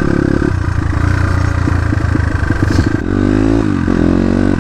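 Dirt bike engine running at low revs with a choppy, uneven note, then revving up about three seconds in, its pitch rising, dipping briefly and rising again.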